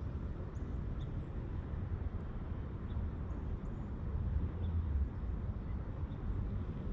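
Quiet outdoor ambience at a pond: a steady low rumble with a few faint, short high chirps or ticks scattered through it.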